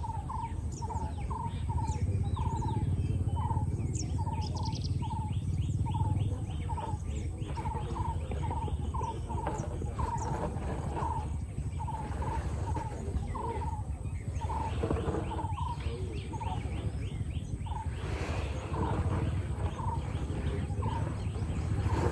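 A bird repeating a short call about twice a second, over a steady low rumble.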